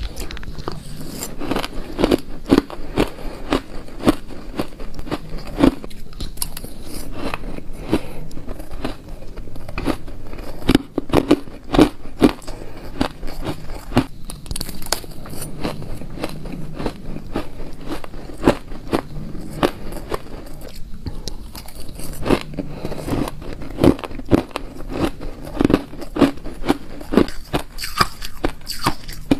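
Crunching and chewing of shaved ice eaten by the spoonful: a dense, irregular run of crisp crunches.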